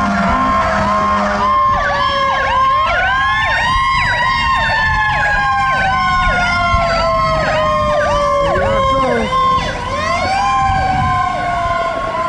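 Fire truck sirens on an emergency run: a slow wail that falls steadily over several seconds and winds back up twice, under a fast repeating yelp of about two to three sweeps a second.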